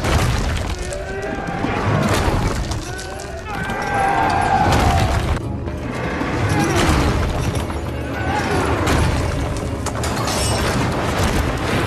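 Iron-banded wooden battering ram striking a stone wall in heavy repeated blows about every two seconds, over dramatic music and men's voices.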